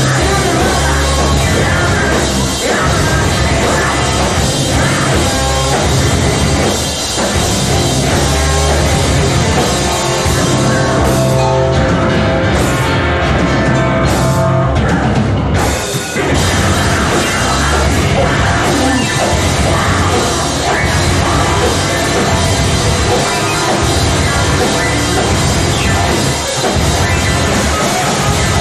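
A rock band playing loud, heavy music live, with a pounding drum kit. About halfway through, the sound breaks off for several brief stop-start moments.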